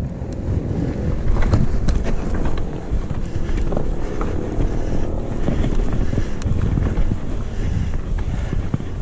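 Mountain bike rolling over sandstone and loose rock: a steady low rumble of tyres and wind buffeting the microphone, with scattered sharp clicks and knocks from the bike rattling over the bumps.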